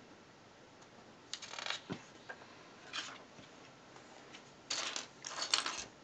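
Loose plastic LEGO pieces clicking and rattling as hands sift through them, in three short bursts, the longest near the end.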